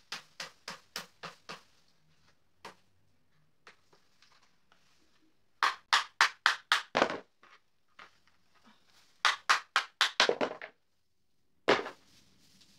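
Metal legs and stand of an artificial Christmas tree knocking and clicking as they are worked off the trunk pole. The knocks come in quick runs of several a second, one at the start and louder runs about 6 and 10 seconds in, with a single loud knock near the end.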